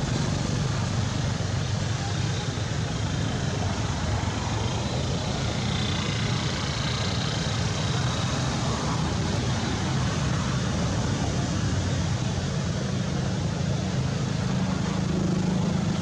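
Steady background noise: a low rumble under an even hiss, with no distinct events.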